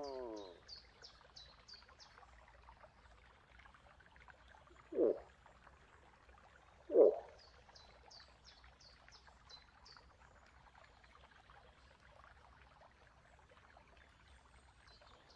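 A long moose call ends with a falling pitch in the first half second. Then two short moose grunts come about two seconds apart, the second louder. Faint high chirps come in short runs behind them.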